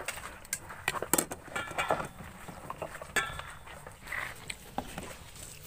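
Close-up eating noises of a person gnawing meat off chicken necks: scattered small clicks and smacks from mouth and bone, with a few faint short high calls in the background.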